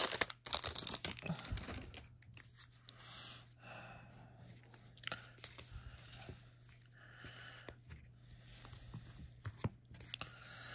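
Foil wrapper of a trading-card pack crinkling and tearing as it is peeled off the cards, dying away within about half a second. Soft rustling and small clicks follow as a stack of baseball cards is handled and shuffled.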